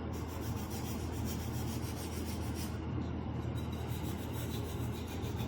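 Sanding stick rubbed back and forth over the edges of a small wooden cutout, steady scratchy strokes smoothing away splinters and rough spots.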